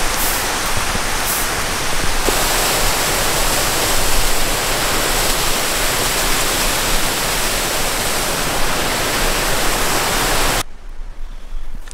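Steady rushing of Beaver Brook's cascades, a waterfall close by. It cuts off abruptly near the end, leaving a quieter stretch with a few sharp clicks.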